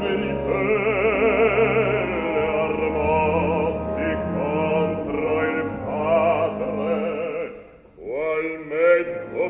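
A deep operatic bass voice singing a sustained Italian line with wide vibrato over low, held orchestral accompaniment. The singing dips briefly near the end, then starts again.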